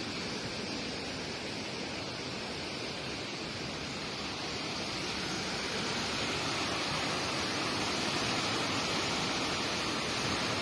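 Steady rushing noise with no distinct events, getting slightly louder about halfway through.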